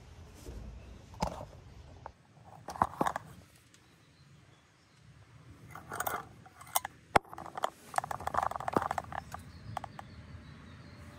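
Scattered sharp clicks and small knocks with rustling, coming in short clusters, with a denser patch of clicking and rustle about eight to nine seconds in.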